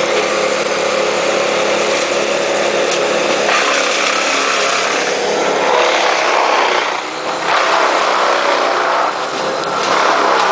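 Heavy diesel equipment running hard, a steady engine drone under loud grinding noise that surges several times, about a third of the way in, around the middle and near the end.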